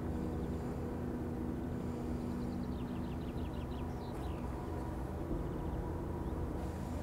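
Steady low outdoor rumble with a faint run of quick, high bird chirps about three seconds in.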